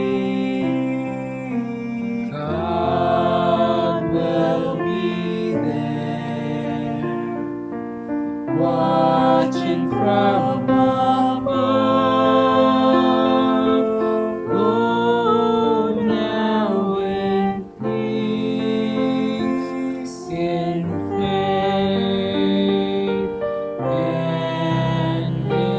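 Slow sacred music of long held chords that change every couple of seconds, with choir-like voices.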